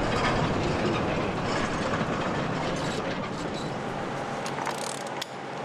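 Large sliding hangar door rumbling along its floor rail as it is pushed shut by hand, with a few metallic clacks; the rumble eases off near the end as the door closes.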